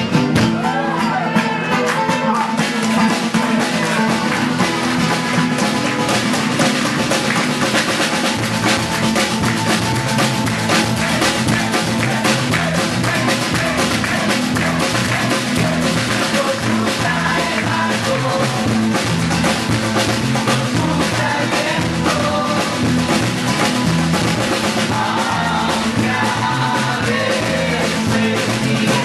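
A live band playing: a drum kit keeps a steady beat over strummed guitars and bass.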